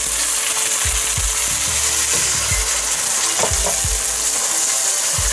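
Chicken and mushrooms sizzling in a hot wok, with water just poured in; a steady hiss. A wooden spatula stirring gives scattered low knocks against the pan.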